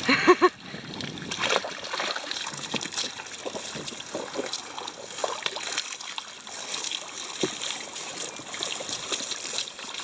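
Water splashing and sloshing in a plastic bucket as clothes are washed by hand, with many small irregular splashes. A brief voice-like sound comes at the very start.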